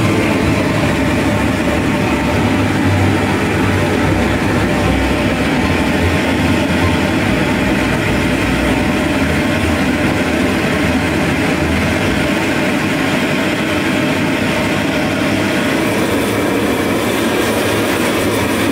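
Handheld gas blowtorch burning with a loud, steady hiss and a low rumble as its flame is held on pressed smokeless charcoal briquettes to light them.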